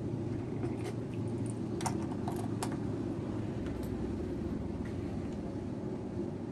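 Yamaha Jupiter MX motorcycle engine, fitted with a PE28 carburettor breathing through its stock air-filter box, idling quietly. A few light clicks and a short jingle, as of keys, come in the first three seconds.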